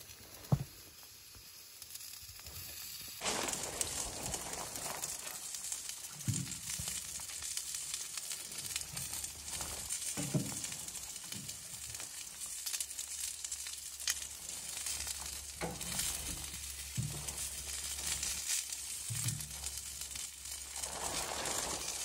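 Chicken wings sizzling in a wire grill basket on a wood-burning tent stove: a steady hiss that starts suddenly about three seconds in, with a few soft knocks.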